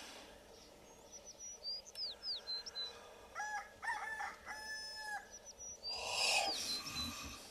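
A rooster crows once: a few short notes, then one long held note. Small birds chirp in high, quick falling calls before and after it. About six seconds in, a short, louder noisy sound comes over the chirps.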